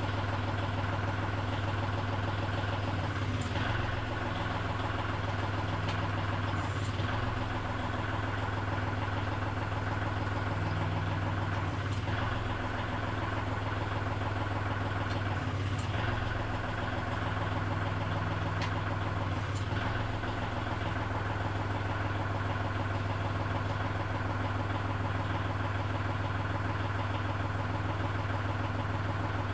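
Kubota L3560 tractor's diesel engine idling steadily while the new top-and-tilt hydraulic cylinders are worked to purge air from the lines. A few faint clicks come now and then, and the engine note shifts slightly a few times.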